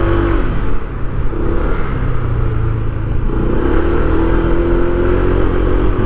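Motorcycle engine running as the bike rides along at low speed, its note easing off about half a second in and picking up again around three seconds in, over a low rumble of wind on the bike-mounted microphone.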